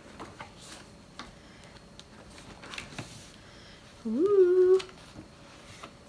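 Pages of a spiral-bound paper planner being turned by hand, with faint paper rustles and ticks. About four seconds in, a short hummed 'mm' from a woman rises in pitch and is held for under a second; this hum is the loudest sound.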